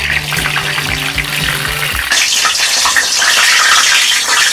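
Battered apple sticks deep-frying in a small pot of hot oil: a steady sizzle with crackles that gets louder about two seconds in.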